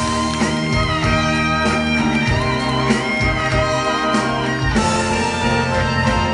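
Musical's curtain-call music from the live band, with guitar to the fore, playing loud and without a break.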